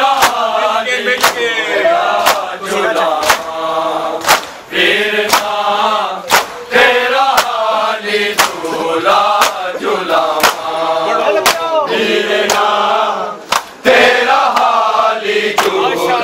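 A group of men chanting a Muharram mourning lament (noha) in unison. Sharp slaps of hands beating on bare chests (matam) land about once a second, keeping the beat.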